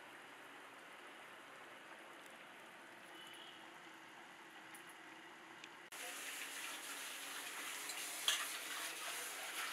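Rice simmering in its cooking liquid in a pan, a soft steady bubbling hiss. About six seconds in it cuts suddenly to louder, closer bubbling with crackles and small pops.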